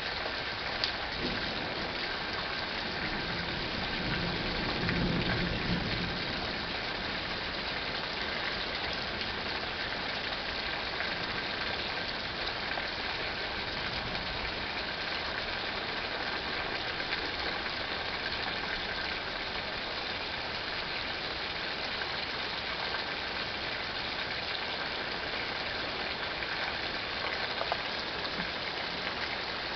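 Steady rain hiss from a thunderstorm, with a low rumble of distant thunder swelling and fading about four to six seconds in.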